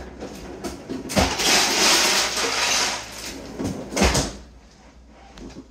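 Ice being fetched from a freezer: a thump about a second in as it is opened, about two seconds of loud rattling ice, then another thump just after four seconds as it is shut.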